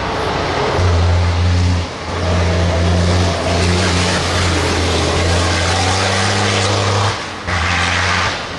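Dakar rally truck's diesel engine pulling hard uphill under full load, loud and deep. The sound drops out briefly about two seconds in and again about seven seconds in, as it changes gear.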